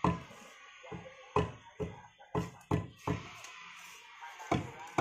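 Sharp, short taps and knocks on lightweight aerated concrete blocks as they are set and levelled in the wall, several in quick succession, then a pause, then two more near the end.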